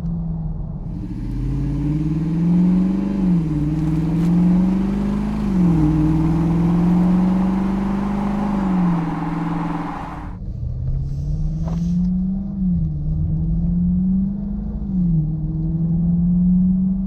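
Dodge Charger's 5.7L HEMI V8 through a Corsa Sport cat-back exhaust, on stock manifolds, accelerating hard through the gears. The exhaust note climbs and drops sharply at each upshift, several times over. A loud rush of wind and road noise runs with it until it cuts off suddenly about ten seconds in, and the engine keeps pulling through two more shifts.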